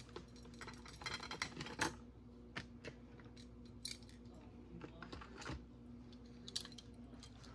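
Scattered light clicks and taps of small hard objects being handled, some in quick little clusters, over a faint steady hum.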